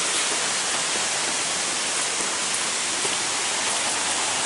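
A small waterfall rushing: a steady, even hiss of falling water.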